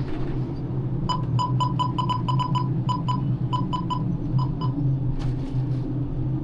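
Ship crane's engine running with a steady low drone, heard from inside the operator's cabin. For a few seconds, from about a second in, a string of about fifteen short, high electronic beeps sounds at an uneven rhythm, then stops.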